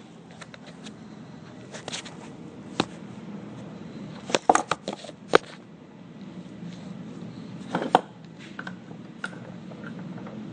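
Seatbelt pre-tensioner being handled and clamped into a bench vise: scattered metallic clicks and knocks, with a quick cluster of them around the middle and a couple more near the end.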